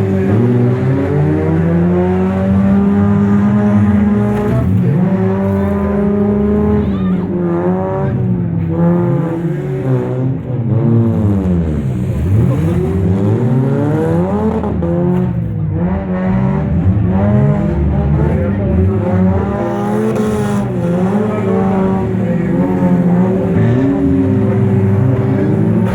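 Several demolition derby car engines running at once, revving up and falling back again and again as the cars are driven hard.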